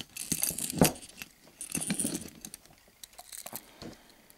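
Treble hooks on a large trolling lure jingling and clinking as the lure is handled and set down on a table, with a louder knock just under a second in.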